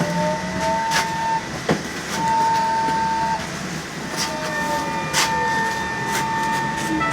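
LAZ E-183D1 trolleybus riding with its electric traction drive whining: a pitch rising near the start, a steady tone that drops out and cuts back in, then falling pitches as it eases off. Sharp clicks and knocks from the vehicle are heard over the road noise.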